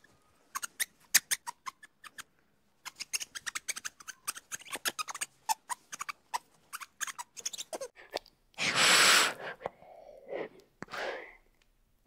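Ring-tailed lemur foraging in ground cover: quick, irregular clicks and crackles. About eight and a half seconds in comes a loud hissing rush lasting about a second, then two shorter, rougher sounds.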